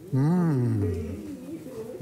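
A man's drawn-out closed-mouth "mmm" of enjoyment while eating a mouthful of food, rising briefly and then sliding down low, followed by a quieter hum.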